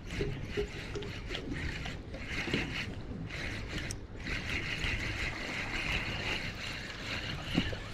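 Spinning reel being cranked, its gears whirring in spells with light ticking, while a hooked fish is reeled in toward the boat. The longest spell of steady cranking comes in the second half.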